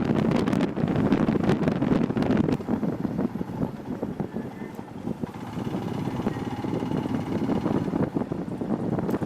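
Wind buffeting the microphone while riding a motorcycle on the road, with the engine and tyre rumble underneath; the rumble eases for a couple of seconds partway through and then builds again.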